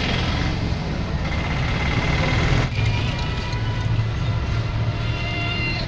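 A vehicle engine running with a steady low drone amid street traffic, with a few faint high tones over it.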